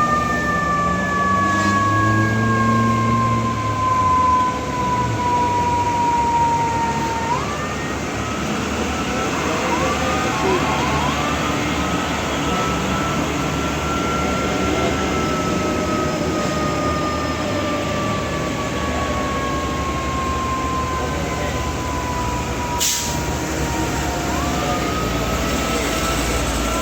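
Heavily loaded truck engine labouring up a steep grade, with a high whine over the rumble. The whine's pitch sinks slowly as the engine is pulled down under load, then jumps up, twice: about seven seconds in and again near the end. A single sharp click comes near the end.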